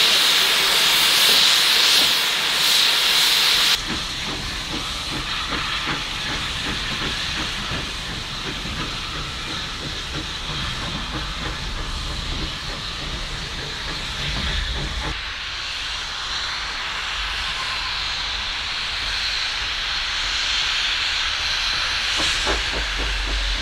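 Small tank steam locomotive venting steam with a loud, steady hiss. About four seconds in the sound cuts to a quieter hiss with the train running, and a low rumble comes in near the end.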